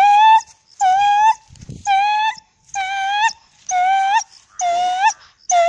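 A dog whining in a string of short, high-pitched calls, about one a second, each about half a second long and rising slightly in pitch at its end.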